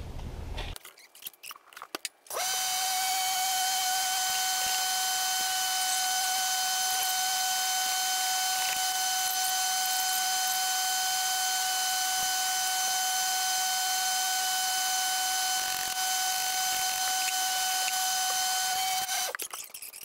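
A machine running with a steady high whine over an even hiss. It starts suddenly about two seconds in and cuts off just before the end, after a few light clicks at the start.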